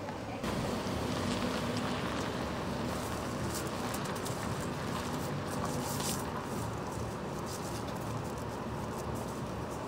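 Plastic barricade tape crackling and rustling as it is pulled off its roll and wrapped around a pole, in short irregular runs, over a steady low hum.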